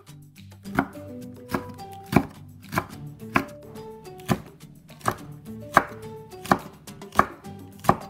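Chef's knife chopping green onion and Cheongyang chili peppers on a wooden cutting board: slow, even knife strokes knocking on the board, about three every two seconds.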